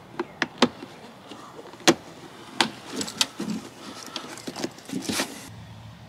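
Hard plastic interior trim panel of a Jeep Wrangler JKU clicking and knocking as it is pressed and snapped into place by hand. It makes a run of sharp clicks, the loudest about two seconds in, and stops about five and a half seconds in.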